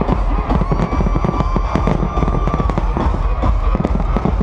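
Fireworks going off in many rapid cracks and bangs over loud dance music with a heavy bass.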